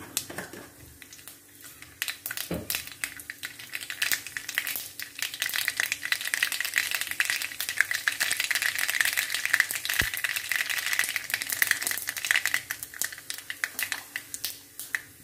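Mustard seeds spluttering in hot coconut oil in a kadai: a fast crackle of tiny pops that builds over the first few seconds, is densest in the middle and thins near the end. The popping shows the oil is hot enough and the seeds are tempering, the cue to add the ground coconut mix.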